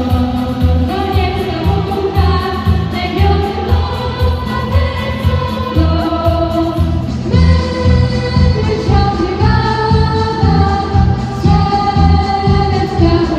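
A small group of girls singing a Polish patriotic song into microphones, amplified through a PA, over a backing track with a steady beat.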